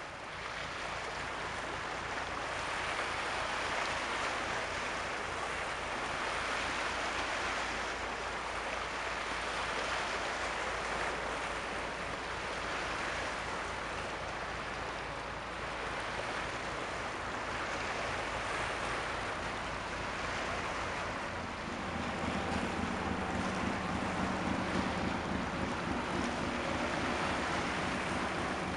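Sea waves washing in repeated swells, a rushing noise that rises and falls every few seconds. About three-quarters of the way through, a low, steady engine hum joins it.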